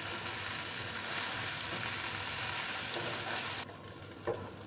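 Hot pan sizzling as soaked poha is stirred into the fried vegetables with a spoon. The sizzle cuts off abruptly near the end, leaving a quieter hiss and one short tap.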